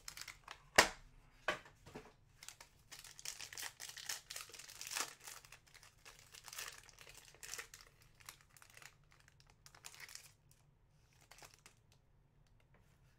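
Foil trading-card pack wrapper crinkling and tearing as it is opened by hand, with a sharp tap about a second in that is the loudest sound. The crinkling is densest in the middle and dies down to faint card handling near the end.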